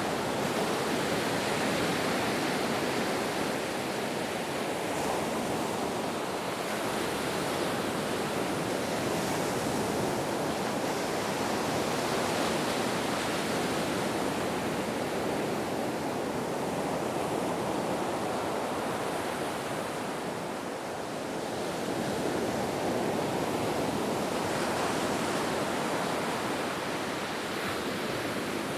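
Ocean waves: a continuous wash of surf that swells and eases gently, with a brief lull about two-thirds of the way in.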